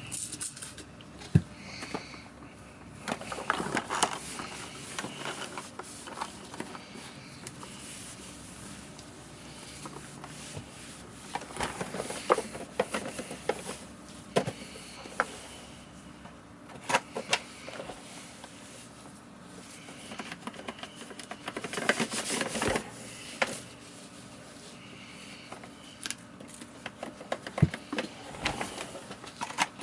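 Hands handling and cleaning the parts of a Miele canister vacuum: scattered plastic clicks and knocks with short spells of rubbing. The vacuum's motor is not running.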